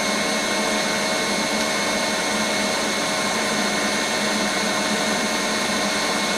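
Spindle motor of a Birmingham vertical milling machine, driven by a Fuji Frenic VFD, running steadily at a set speed with a constant hum and a thin high whine.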